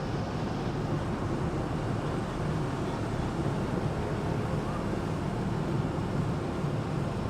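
Engine of an amphibious Duck tour boat, a converted WWII DUKW, running steadily while under way on the river.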